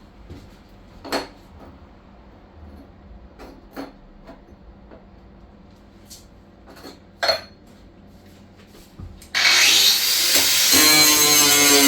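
A few scattered knocks and clicks, then about nine seconds in a power tool starts up loudly, rising in pitch and settling into a steady, whining run.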